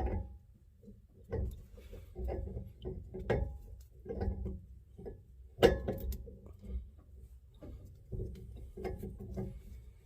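Wrench work on a brass air-ride fitting as an air-suspension dump valve is threaded on: irregular metallic clicks and knocks with handling rumble, and one sharp, loud click a little past halfway.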